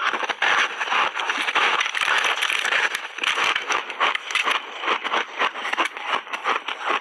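Close-miked crunching of a purple crunchy ice roll: a big bite into the frozen block, then steady chewing, a dense run of crackles and crunches.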